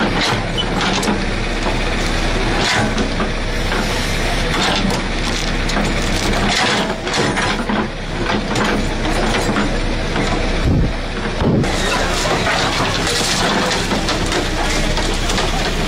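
Backhoe loader's diesel engine running steadily while its bucket breaks down mud walls, with repeated crumbling and clattering of falling earth and debris.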